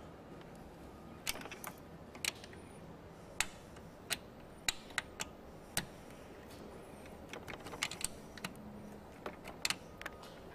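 Scattered light metal clicks and taps, irregular and a few each second, as an Allen key is fitted into and turned on the mirror's mounting bolts on the door frame.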